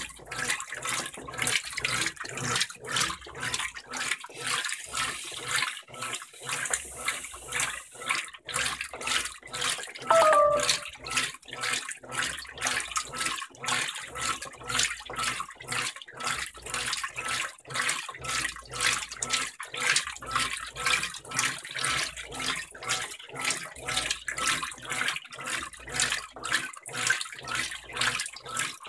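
Brastemp BWG12 top-load washing machine agitating a load of jeans in water: rhythmic sloshing and swishing as the wash action reverses back and forth, over a low motor hum that comes and goes. A short tone sounds once, about ten seconds in.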